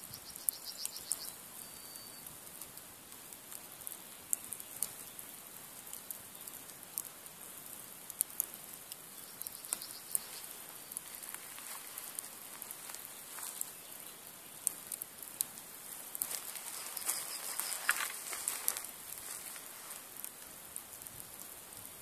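Nadya log fire, two long logs laid one on the other, crackling with frequent sharp pops and ticks over a soft hiss. The hiss and crackle grow denser for a few seconds about three-quarters of the way through.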